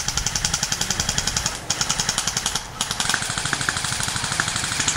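Airsoft gun firing on full auto: a rapid, even rattle of shots in three long bursts, with brief pauses about a second and a half in and just under three seconds in.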